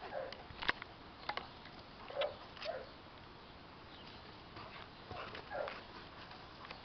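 Dogs at rough play giving short huffs in pairs, three times, with a few sharp clicks near the start.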